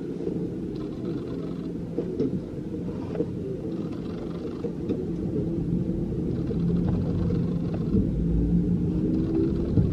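Low, steady rumble inside an Airbus A321's cabin as it is pushed back from the gate, growing slightly louder, with a faint rising hum coming in near the end.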